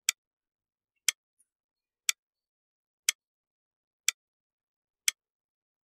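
Clock-tick sound effect counting down: one short tick each second, six in all, with silence between them. It marks the time given to answer a quiz question.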